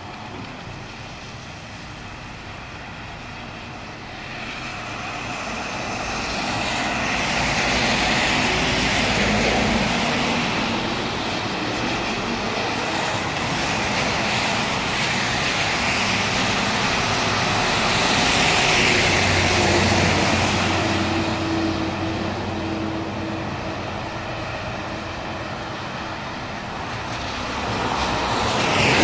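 Traffic passing on a rain-soaked road: tyres hissing through standing water as cars and a truck go by. The swish swells and fades a few times, loudest as vehicles pass close, with a low engine hum under one of the passes.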